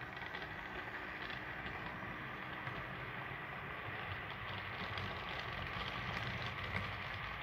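Model railway train running on the layout: a steady electric-motor whine over the rumble of small wheels rolling on the rails.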